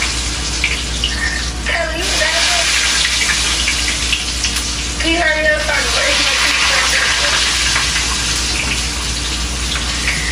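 Hot grease sizzling steadily in a frying pan as French fries deep-fry, a loud continuous hiss. Faint voices are heard under it.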